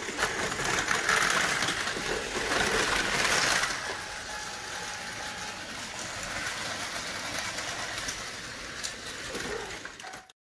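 Battery-powered Tomy Plarail toy trains running on plastic track, small electric motors whirring, one of them an E6 Komachi fitted with an Atomic Tuned2 motor. Louder for about the first four seconds, then quieter and steady, cutting off abruptly shortly before the end.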